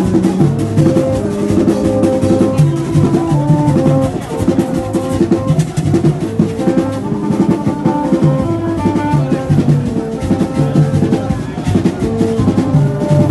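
Music led by fast, steady drumming, with a melody of short pitched notes over it.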